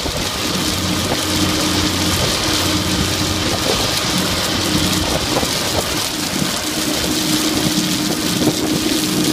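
Pegson 1200 x 450 tracked jaw crusher running: a steady drone from its CAT 3306 diesel engine under the hiss and patter of crushed stone pouring off the discharge conveyor onto the stockpile.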